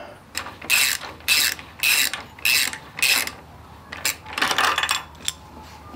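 Old gasket maker (RTV sealant) being scraped off an engine sealing surface in repeated short strokes, about five quick scrapes and then a longer scrape around the middle.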